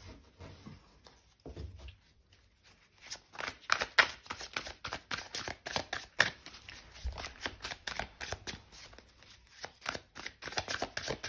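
A deck of tarot cards being shuffled by hand: a rapid run of short card clicks and slaps that starts sparse after about a second and a half and grows dense from about three seconds in.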